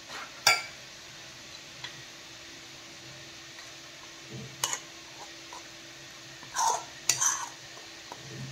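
A metal spoon clinking against a bowl and pan while working wheat flour, in a few sharp clinks: one about half a second in, one near the middle, and a cluster near the end. A faint steady hum runs underneath.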